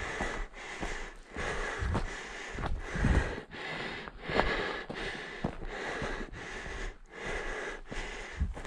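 A person breathing hard and fast through the nose and mouth, with footsteps crunching on dry, gravelly ground as he hurries uphill on foot.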